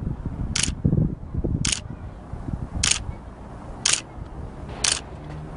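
A short, sharp hiss-like click repeating evenly about once a second, five times, over rumbling, gusting wind noise on the microphone.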